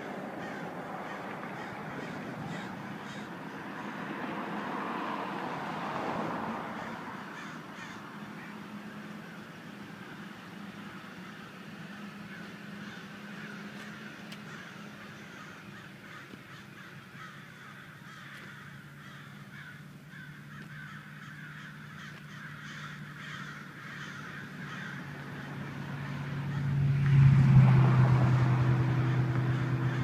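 A large flock of crows cawing continuously, many birds calling over one another. Near the end a low steady hum swells to the loudest point and then eases off.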